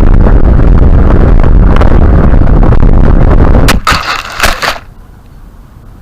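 Rocket launch noise: a loud, heavy rumbling roar with crackling. It breaks into two sharp crackles about four seconds in, then cuts off abruptly.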